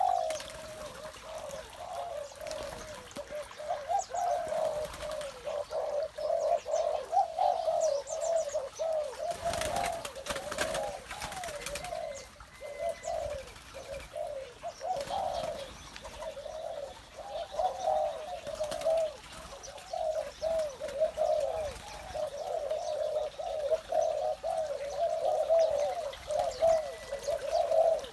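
Spotted doves cooing over and over with hardly a pause, deep rolling coos. A short rush of noise, like a splash or rustle, breaks in about ten seconds in.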